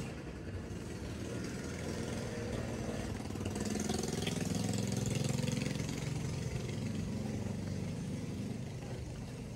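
An engine running steadily, getting louder about four seconds in and easing off near the end.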